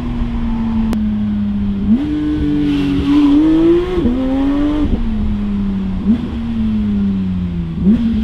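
Porsche 992 GT3's 4.0-litre flat-six running through an Fi Exhaust aftermarket exhaust, heard from inside the cabin while driving. The engine note sags slowly as revs fall, jumps up sharply about two seconds in and climbs for a couple of seconds, then gives quick rev spikes twice near the end.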